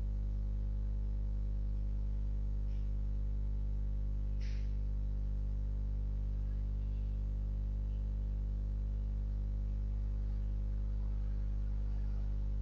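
Steady low electrical hum with many even overtones, unchanging in level, with a faint brief hiss about four and a half seconds in.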